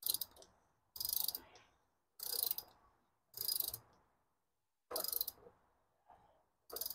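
Hand socket ratchet clicking in short runs on each back-swing while it tightens a cartridge oil filter housing cap. There are about six runs of rapid clicks, a little over a second apart.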